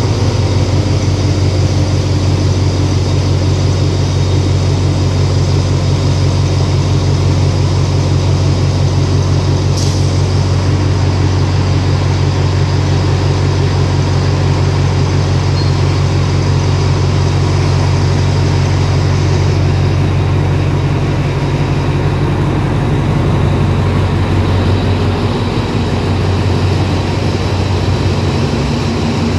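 Alsthom diesel locomotive No. 4110's engine running with a steady, loud, low drone as the locomotive moves along the platform.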